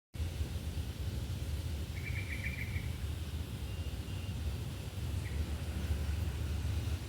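Steady low rumble of wind or handling noise on the microphone, with a small bird's short rapid trill about two seconds in and a couple of faint thin bird notes later.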